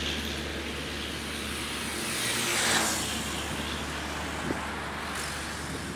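Steady road and wind noise with a low engine hum from a road vehicle moving along a bridge, with a rush that swells and fades about halfway through.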